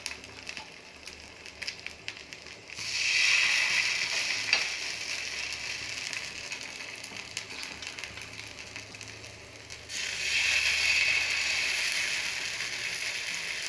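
Spoonfuls of rice batter with shredded bamboo shoot landing in hot mustard oil on a tawa. Over a faint crackle, a loud sizzle starts suddenly about three seconds in and slowly dies down, and a second one flares up about ten seconds in as the next fritter goes on.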